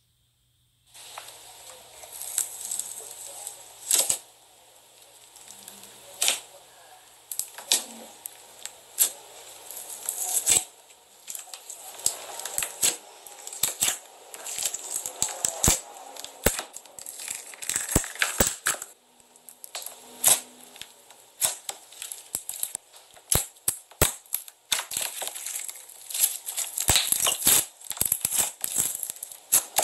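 Yellow slime being squeezed and pressed by hand, giving many sharp crackling pops and clicks. The pops come thicker and faster near the end.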